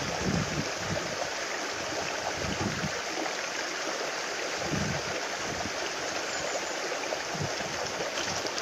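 Steady outdoor rushing hiss, with soft low rumbles now and then.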